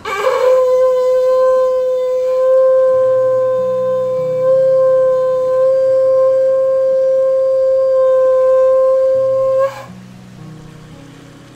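Conch shell (shankh) blown in one long, steady note of nearly ten seconds, swooping up into pitch at the start and cutting off sharply; it sounds at the opening of an aarti. Soft low instrumental music plays underneath from a few seconds in.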